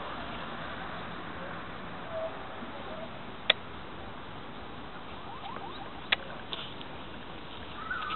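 Steady outdoor background hiss with a few faint short chirps and two sharp clicks, about three and a half and six seconds in.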